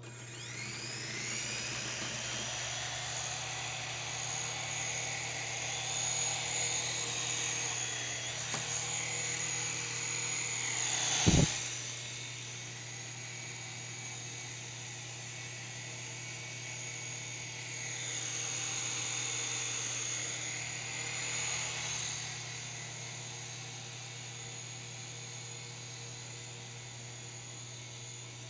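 S107G mini RC helicopter's small electric motors and coaxial rotors whining in flight. The pitch rises as the rotors spin up at the start, a sharp knock comes about eleven seconds in, and the whine swells again later before easing.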